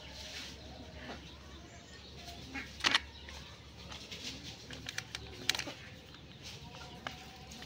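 Birds calling faintly in the background, with a few sharp clicks and taps, the loudest about three seconds in and another about five and a half seconds in.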